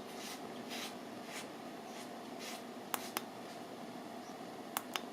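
Quiet room tone with light handling noises: a few soft rustles, then two pairs of short sharp clicks, about three seconds in and again near the end.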